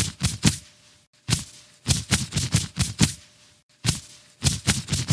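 Punches landing on a punching bag in quick flurries of several hits, about four hits a second, with short pauses between the flurries.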